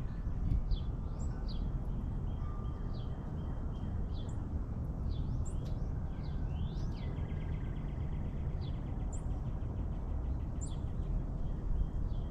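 Small birds chirping: many short sharp chirps, with a rapid buzzy trill about two-thirds of the way in, over a steady low rumble.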